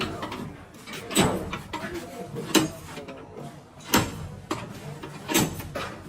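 Sharp knocks, four of them evenly spaced about a second and a half apart, each with a brief ring.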